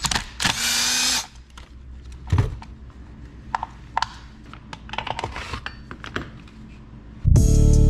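A small power tool runs briefly about half a second in, then scattered clicks and knocks as tools and trimmer parts are handled. Music with a beat starts near the end.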